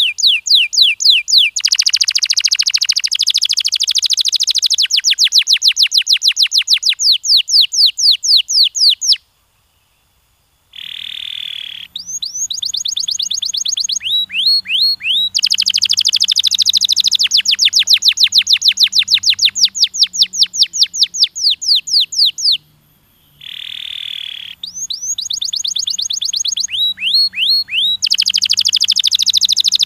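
Domestic canary singing: long fast trills of repeated rising notes, about five a second, with brief buzzy notes between rolls. The song breaks off twice for a moment, about nine and twenty-three seconds in.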